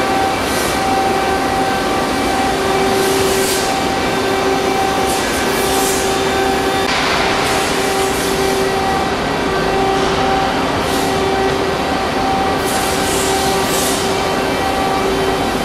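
Nakamura-Tome SC-300II CNC lathe taking a heavy outside-diameter turning cut, 9 mm deep: steady, loud machine noise with a humming tone that swells and fades every second or two, and short bursts of hiss.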